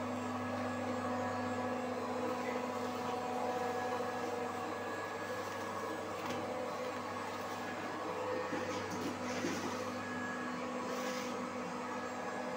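Plastic bottle blow moulding machine running with a steady motor hum, with a few short hisses.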